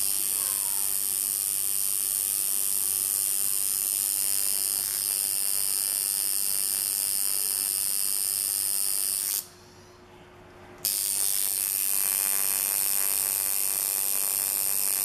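Tattoo machine buzzing steadily as the needle lines a design into skin. It stops for about a second and a half partway through, then starts again.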